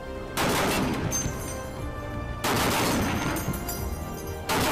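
M2 Browning .50-calibre heavy machine gun firing sustained automatic bursts, starting about half a second in.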